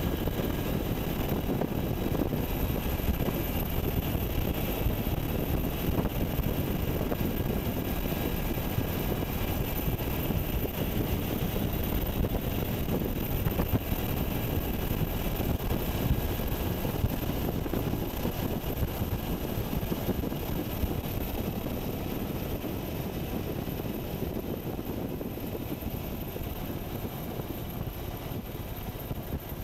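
UH-60 Black Hawk helicopter heard from on board: a steady, dense rush of turbine engine and rotor noise that eases off slightly toward the end.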